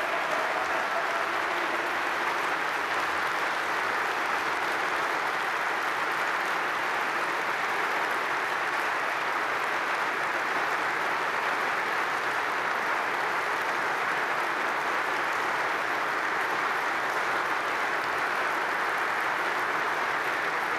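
A large audience applauding, a dense, steady sustained ovation.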